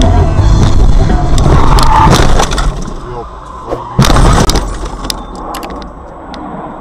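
Car collision caught on a dashcam: loud crashing noise for the first couple of seconds, then a single sharp bang about four seconds in, followed by a few faint clicks.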